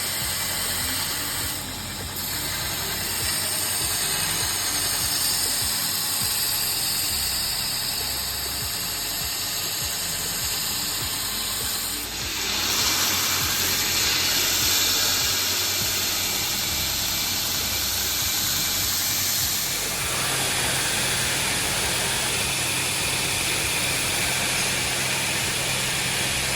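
Steady hissing run of workshop machinery, changing abruptly twice.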